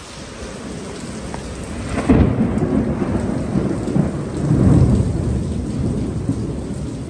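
Heavy rain pouring steadily, with a low rumble of thunder that comes in suddenly about two seconds in, swells again near five seconds and then slowly fades.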